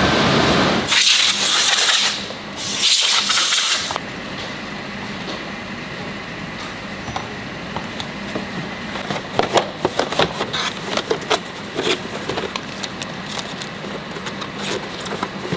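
Two loud bursts of hiss in the first few seconds. Then cardboard boxes and paper leaflets are handled on a steel table: rustling paper, and many light taps and clicks.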